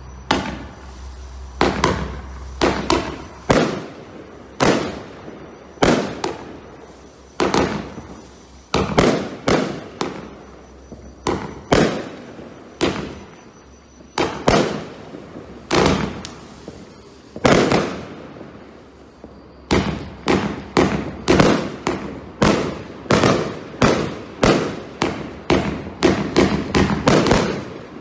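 Firework barrages from a Brothers 'The Entertainer' 104-shot display pack firing shot after shot: a long run of sharp bangs, each dying away quickly. They come about one a second at first, then faster and closer together from about two-thirds of the way through.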